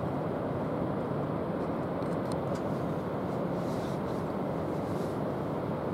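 Ocean surf breaking along the beach: a steady, even roar.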